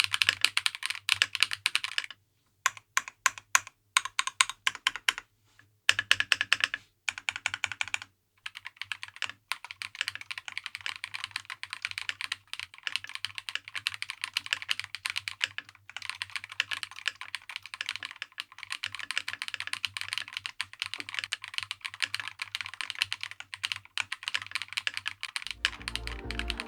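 Typing on a KiiBoom Phantom 81 V2 transparent mechanical keyboard: rapid keystroke clacks, broken by a few short pauses in the first eight seconds, then fast, steady typing.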